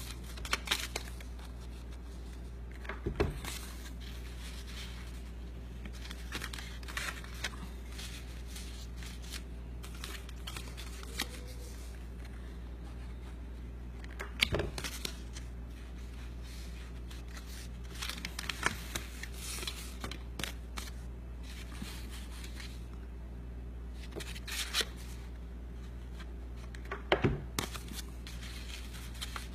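Cardstock paper petals being handled and pressed together: scattered short rustles and light taps over a steady low hum.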